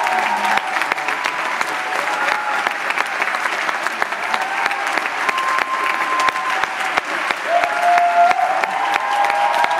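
A large crowd clapping steadily in a sustained round of applause, with a few voices calling out and cheering over it.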